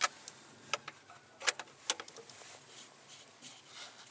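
A few sharp clicks and knocks in the first two seconds as things are handled inside the tractor's open metal toolbox, followed by softer rustling of a waterproof jacket.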